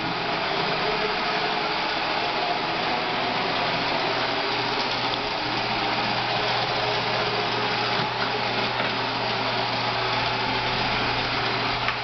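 Roomba robot vacuum cleaning a hardwood floor, its motor and brushes giving a steady whir with a low hum underneath.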